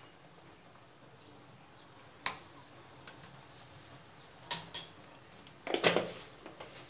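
A few light clinks and knocks of kitchenware: one sharp click about two seconds in, another a little after four seconds, and a louder cluster of knocks near six seconds.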